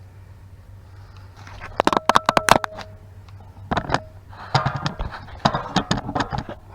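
Metal tools and brake parts clanking and clinking in two bursts, some strikes leaving a short metallic ring, over a steady low hum.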